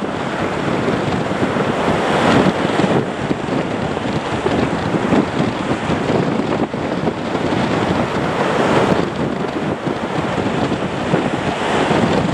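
Strong gusty wind buffeting the microphone, swelling and easing every few seconds.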